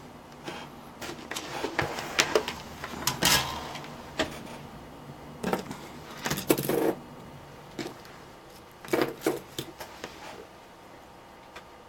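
Irregular clicks, taps and rustles of a soldering iron, solder and wires being handled at a workbench while wire ends are tinned, in a few clusters.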